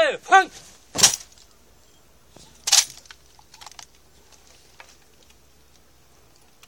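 The end of a drawn-out drill command, then two sharp cracks about a second and a half apart with a few faint clicks after, as a police squad performs salute drill.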